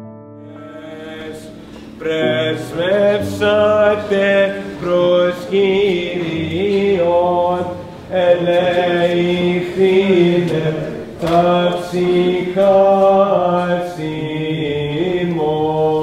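Male voice chanting a Greek Orthodox liturgical hymn, a single ornamented melodic line that begins about two seconds in and carries on with short breaths between phrases.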